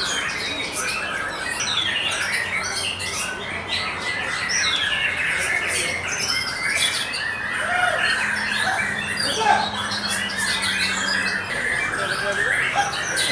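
White-rumped shama (murai batu) singing a fast, varied song of whistles and chirps, with many other birds' calls overlapping it throughout.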